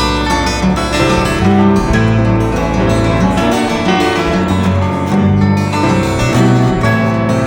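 Background music led by plucked acoustic guitar over a bass line.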